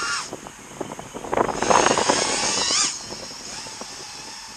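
FPV quadcopter flying close by, its motors and propellers whining and sliding up and down in pitch with throttle. It is loudest in a pass from about one and a half to three seconds in, ending in a quick rising whine, then fainter as it moves off.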